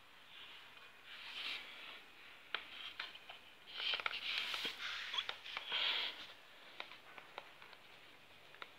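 Handling noise from a PCP air rifle being turned over in the hands: scattered small clicks and knocks, with a few short airy hisses about a second in and again around four to six seconds in.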